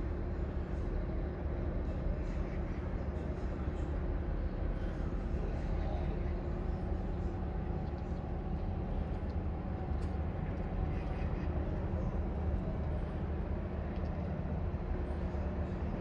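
A steady low rumble of background noise with a faint, even hum in it.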